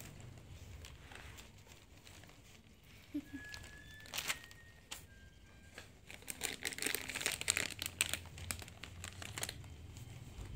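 Newspaper and plastic packaging crinkling and rustling as they are handled, with scattered clicks and taps. It is sparse at first and densest in the second half.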